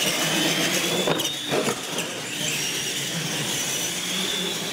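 Two radio-controlled monster trucks racing on a concrete floor: a high-pitched whine from their electric motors and gearing over tyre noise. A few sharp knocks come in the first two seconds.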